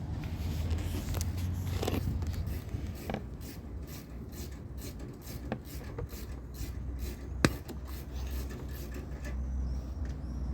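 Old wiring being cut and pulled out of a car door: scraping and rubbing with several sharp snips or clicks, the loudest about seven seconds in.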